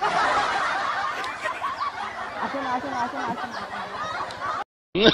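Crowd laughter, many people chuckling and laughing over one another, that cuts off abruptly near the end.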